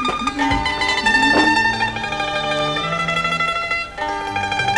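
Background music led by a plucked string instrument, playing a melody of held notes with a few sharp plucked accents.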